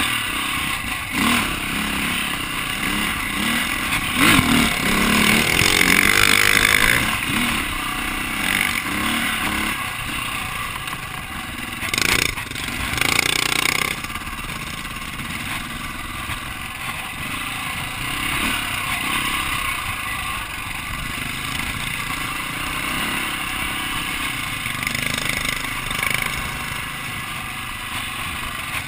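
Dirt bike engine running and revving as it is ridden over a rough, rocky trail, mixed with a steady rush of wind noise. There are louder bumps and surges about twelve to fourteen seconds in.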